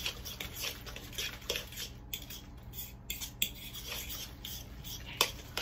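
A utensil stirring a wet, chunky zucchini, herb, feta and egg mixture in a mixing bowl, with irregular scraping and clicking against the bowl.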